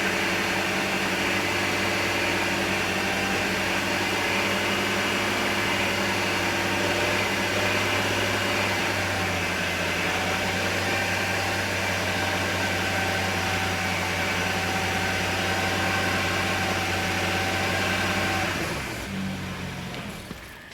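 BMW 335i turbocharged inline-six running steadily at idle, which the owner suspects is the beginning of rod knock, heard only at low rpm under light or no load. It is switched off and runs down about two seconds before the end.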